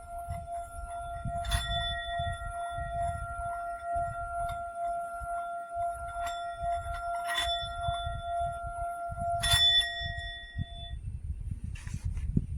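Small hammered Tibetan singing bowl ringing with a steady, sustained tone while being played with its wooden mallet. It is struck three times, each strike adding brighter ringing overtones. The ringing stops about two seconds before the end, and a low rumble runs underneath throughout.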